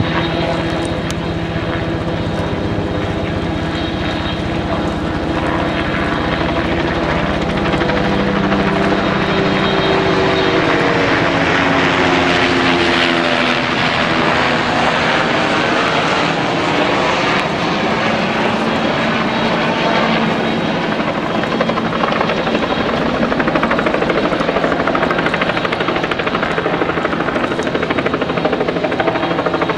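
Engine drone with a rapid, even beating in the low end; its pitch dips and then rises again about midway.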